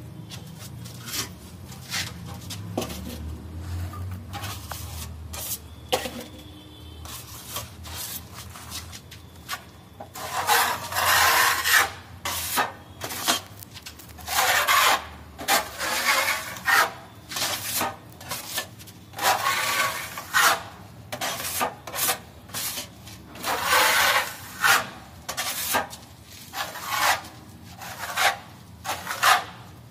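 Steel putty knife scraping across a cement wall in repeated strokes as a second coat of white wall putty is spread on. The strokes come about once a second, fainter at first and louder from about ten seconds in.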